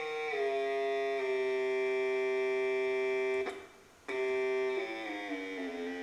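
Buzzy electronic tone from a signal generator's loudspeaker, rich in overtones rather than a pure note, stepping down in pitch as its frequency dial is turned down. It holds steady, cuts out for about half a second past the middle, then comes back and slides lower again near the end.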